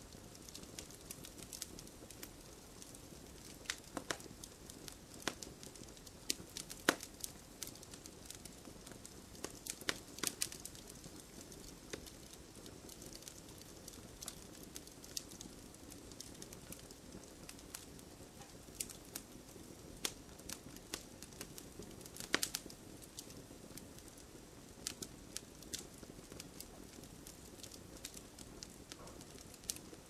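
Fireplace fire crackling: irregular sharp snaps and pops over a soft steady hiss, with a few louder pops scattered through.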